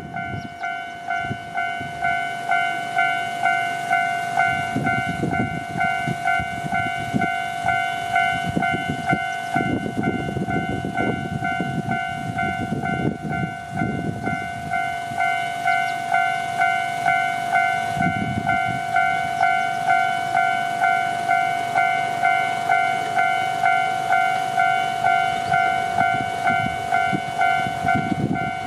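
Japanese railway level-crossing warning bell ringing in an even, steady rhythm, a bit under two strokes a second, the signal that a train is approaching. A low rumble comes and goes beneath it.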